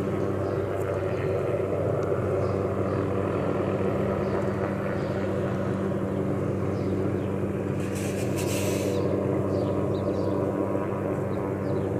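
Helicopter hovering: a steady drone from its rotor and engine, made up of an even stack of low tones. A brief hiss about eight seconds in.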